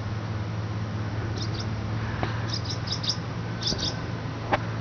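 A territorial bird giving short, high chirping calls in quick clusters of two or three, several times, the calls of a bird defending its nest area by dive-bombing a person. A steady low hum runs underneath, with two sharp clicks.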